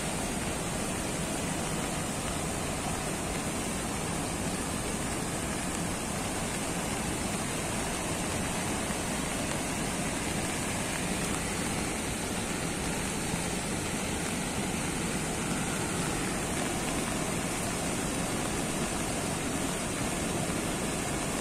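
Floodwater pouring over a dam's weir and churning through the channel below: a steady rush of water that does not let up.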